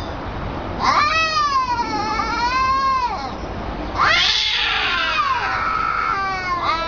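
Cats in a face-off yowling at each other: a long, wavering yowl that rises, dips and rises again about a second in, a harsher, raspier yowl around four seconds in, and another yowl beginning near the end.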